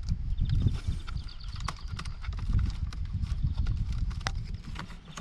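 Scattered clicks and knocks of a steering wheel and its plastic trim being handled and worked off the column, with wires being fed through, over an uneven low rumble.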